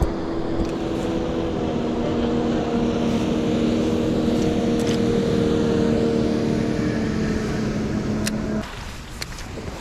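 Motorboat engine running steadily as the boat passes on the river, cutting off suddenly about three quarters of the way in. A few sharp clicks follow near the end.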